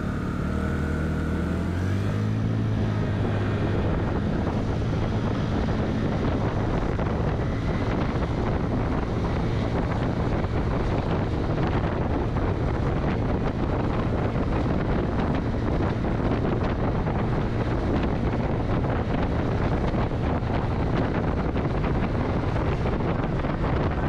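Honda Navi scooter's small single-cylinder four-stroke engine pulling away, its note rising over the first couple of seconds. Then a steady rush of wind over the microphone at riding speed, with the engine humming underneath.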